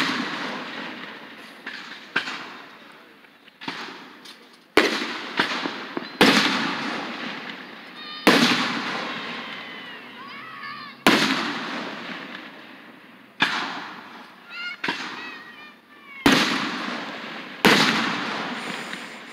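Aerial fireworks shells bursting overhead: a string of loud bangs every two or three seconds, each trailing off in a long rumbling echo.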